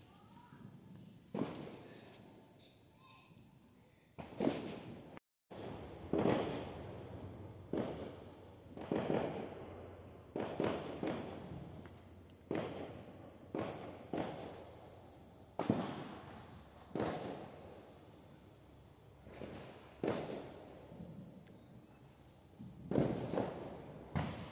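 Firecrackers going off one after another, a sharp bang every second or two, each fading quickly.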